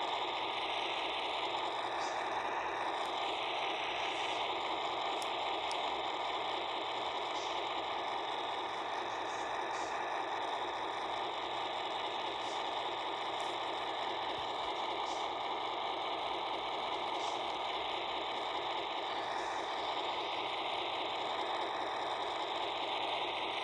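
Laptop speakers playing a sound-sequencer track that repeats one explosion sample over and over, so fast that it blurs into a steady wall of noise.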